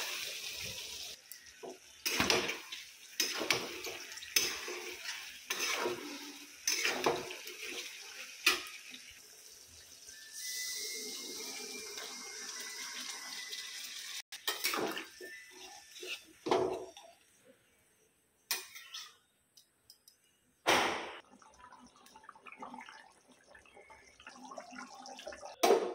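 Metal spatula scraping and clanking against a steel kadai while stirring, in irregular knocks about once a second. About halfway through there are a few seconds of steady hiss.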